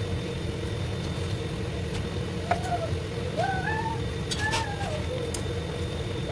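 A young child's short, high calls, each rising and then falling, in a run starting about two and a half seconds in, over a steady low kitchen hum. A few knife taps on a wooden cutting board come as green onions are cut.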